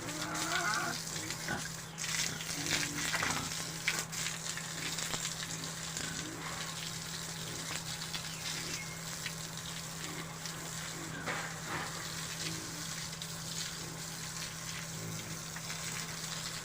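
Water spraying onto pigs and the pen floor as they are washed, a steady hiss, with short pig grunts now and then over a steady low hum.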